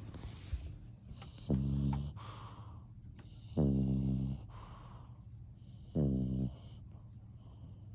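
Snoring: three loud, low snores about two and a half seconds apart, each followed by a breathy hiss of air.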